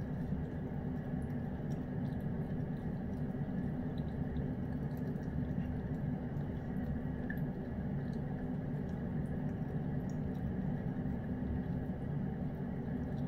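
Cat licking and chewing at a piece of fried chicken held in a hand, making faint wet smacks and small clicks over a steady low hum.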